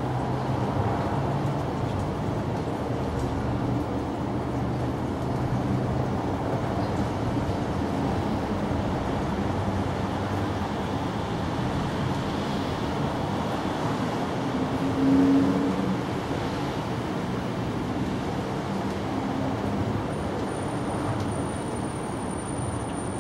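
Steady low rumble of road traffic, with a louder swell about fifteen seconds in.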